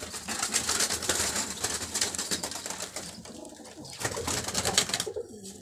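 Domestic pigeon flapping its wings: a fast flutter of wingbeats for about three seconds, then a shorter flutter about four seconds in.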